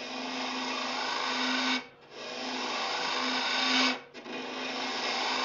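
Hunter carbide cutter on a boring bar taking big shavings from the inside of a dry ash blank spinning on a lathe: a steady cutting noise in three passes of about two seconds each, with brief breaks between them.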